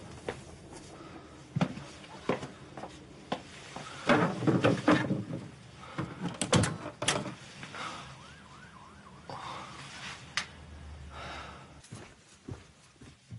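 Irregular knocks, clunks and rattles of objects and a cupboard door being handled in the dark, busiest about four to five seconds in and again around six to seven seconds.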